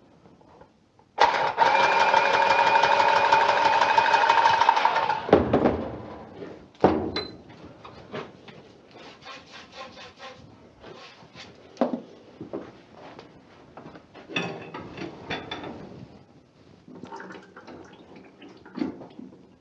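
A handheld power tool's electric motor runs steadily for about four seconds, starting about a second in, then winds down. It is followed by scattered knocks and clatter of hand work on pipe fittings.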